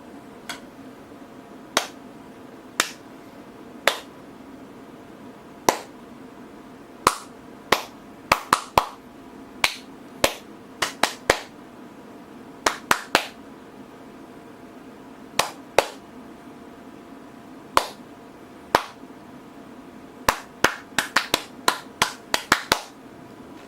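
Sharp claps or taps, about thirty, coming irregularly: some singly, some in quick runs of three to six. A steady low hum runs underneath.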